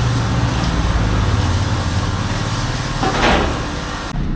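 Pressure washer running, its pump motor humming under a steady hiss of spray, with a brief louder gush of spray about three seconds in.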